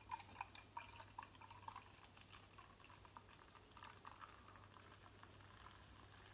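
Lager poured slowly from a glass bottle into a glass: faint, with a quick run of small gurgles and splashes in the first two seconds, another short cluster a little before the end, and a softer stream between.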